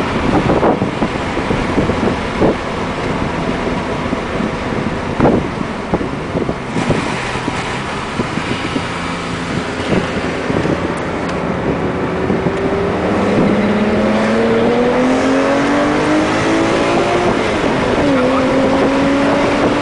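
BMW M3's engine with road and wind noise, heard from inside the cabin. The first half is mostly rumbling road and wind noise with a few knocks. A little past halfway the engine accelerates, its note rising steadily for several seconds. Near the end it drops at an upshift and starts rising again.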